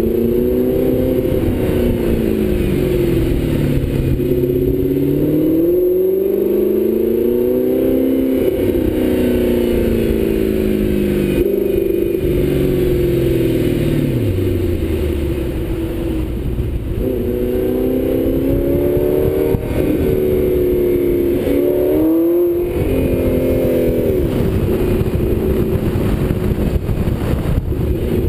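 Audi R8 engine through a Kreissieg aftermarket exhaust, pulling through city traffic. Its pitch rises and falls repeatedly as the car accelerates and eases off, drops low about halfway through as it slows, then climbs again with a quick sharp rev near the end.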